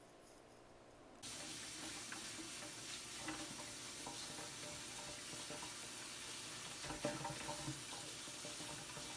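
Kitchen tap running into a stainless steel sink while fiddleheads are rinsed in a colander under the stream, a steady splashing hiss that starts about a second in, with a few light knocks.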